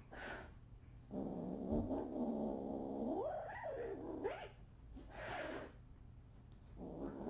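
Cat growling low, the growl rising and falling into a yowl, with a short hiss at the start and another about five seconds in, and a fresh growl starting near the end: the threat sounds of a cat spoiling for a fight.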